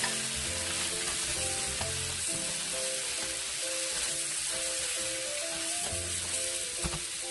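Littleneck clams frying in a hot pan with sautéed garlic, onions and tomatoes: a steady sizzle. Light background music plays over it.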